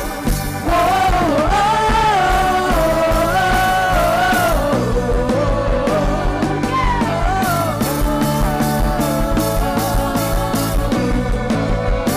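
Band playing an upbeat rock-style gospel song: steady drums and bass under a smooth melodic lead line that bends up and down in pitch, between sung lines.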